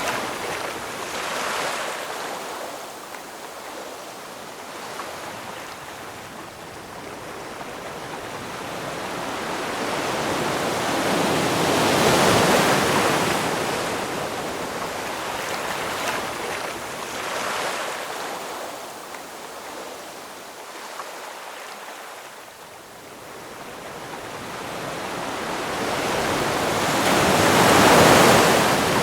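Ocean surf: waves swell and break in slow surges, the two biggest about twelve seconds in and near the end, with smaller ones between, over a steady hiss of moving water.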